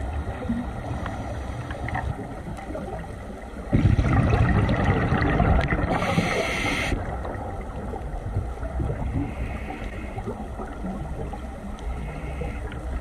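Underwater ambience picked up through a camera housing: a steady low rumble, with a loud burst of scuba regulator exhaust bubbles about four seconds in that lasts about three seconds.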